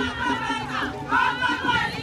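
A group of women singing together in high voices, short phrases rising and falling, over the murmur of a street crowd.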